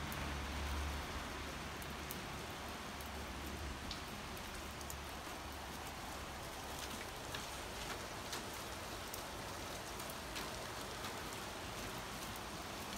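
Heavy rain falling steadily on pavement and a street: an even hiss with scattered sharp ticks of single drops.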